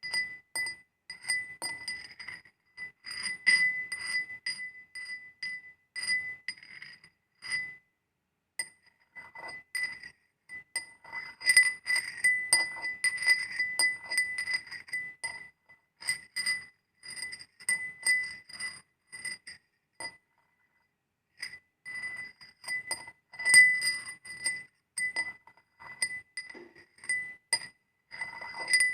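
Glass rubbed against iron, making a long run of short, high, ringing squeaks, all on one steady pitch, with brief pauses about a quarter of the way in and again about two-thirds of the way.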